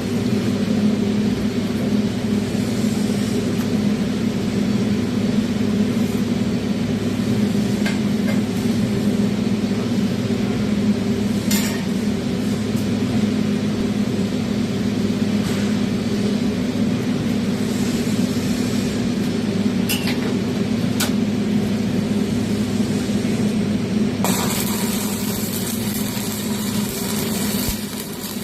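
Stick-welding arc crackling and sizzling steadily as a horizontal fillet bead is run, over a steady electrical hum, with a few sharp pops along the way.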